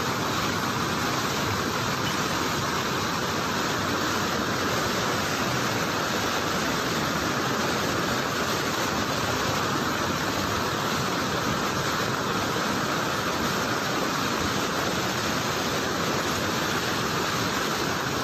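Muddy floodwater in a river in flash flood, rushing and churning in standing waves: a steady, unbroken rushing noise.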